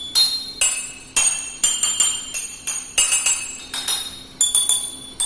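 Drinking glasses holding different levels of water struck one after another, about two or three strikes a second. Each gives a short, bright ringing note, and the notes differ in pitch because the water levels differ.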